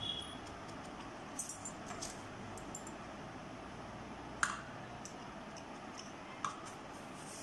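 Scattered light clicks and taps from a marker and a steel ruler being handled and set down on a tabletop, over a steady background hiss. The sharpest tap comes a little past halfway, and a softer one follows near the end.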